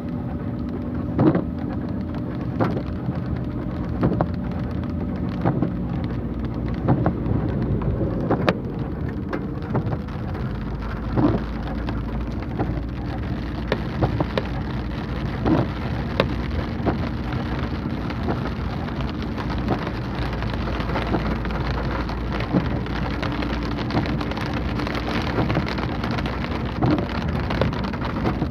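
Heavy rain drumming on a car heard from inside the cabin as it drives through floodwater, over the steady hum of the engine. Windshield wipers knock about once every one and a half seconds.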